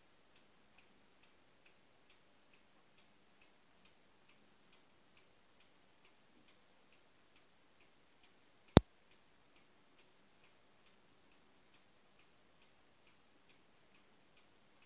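Faint, steady ticking, a little over two ticks a second. About nine seconds in comes a single sharp click, by far the loudest sound, and another right at the end.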